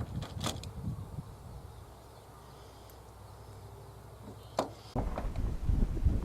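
Two sharp clicks about four seconds apart from handling airgun pellets and their magazine. Wind starts rumbling on the microphone about five seconds in.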